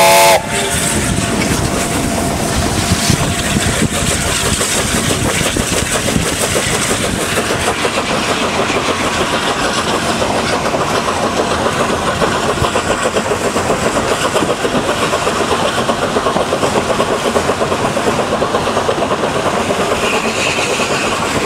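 BR Standard Class 8 4-6-2 steam locomotive No. 71000 under way, heard from its footplate: a steady running noise of the engine and wheels on the rails, with a dense rapid rhythm. A short, very loud tone sounds at the very start.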